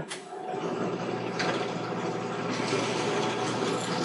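Benchtop drill press switched on with a click, its motor then running steadily with a low hum and whine.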